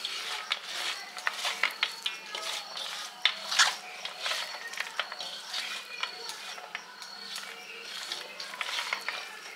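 Aloo kabli being mixed by hand on a metal plate after tamarind water is poured in. Boiled potato, onion, tomato and chickpeas squelch, with irregular light scrapes and clicks against the metal.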